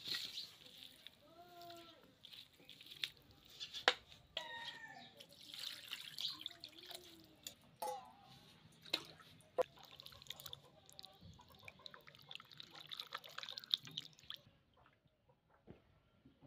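Raw mutton pieces handled and washed in water in a steel bowl: wet splashing and dripping with sharp clicks and knocks against the metal, growing quieter near the end. A few short high calls sound in the background.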